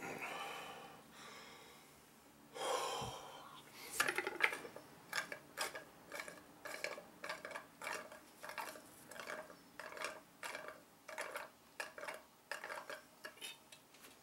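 A man chugging a bottle of fortified wine in one go: gulps and swallows about twice a second, with breaths between them. Before the gulping begins there is a short rustle and a low thump.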